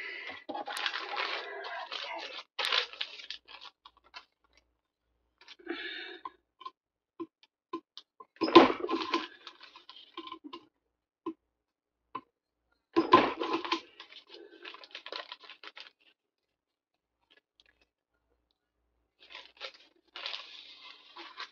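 Paper being handled and torn, in scattered spells of rustling and crackling with pauses between. Two louder thumps come about eight and thirteen seconds in.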